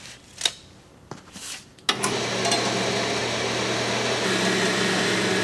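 A few light knocks as the aluminum bar is set in place, then about two seconds in a horizontal metal-cutting band saw starts and runs steadily, its blade cutting through a solid 7075 T6 aluminum bar.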